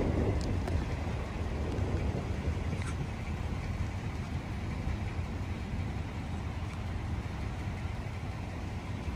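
Thunderstorm ambience: rain with a steady low rumble.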